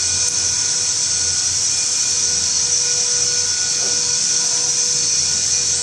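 Vacuum emulsifier homogenizer mixer running: a steady, loud, high-pitched whine and hiss with a low hum beneath it.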